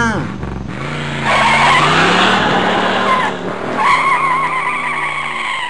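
Car tyres squealing twice over a running engine: a loud, rough skid from about a second in, then a steadier high squeal near the end.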